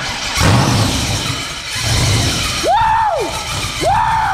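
6.0-litre LS V8 running loudly and unevenly just after catching on its first start, the low exhaust pulsing and swelling. In the second half, several short high whoops that rise and fall in pitch sound over the engine.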